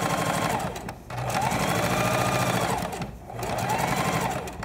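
Sewing machine stitching in three runs with two brief pauses between them, its pitch rising and falling as it speeds up and slows down in each run. It is top-stitching the edge of a trouser side pocket at 1/8 inch.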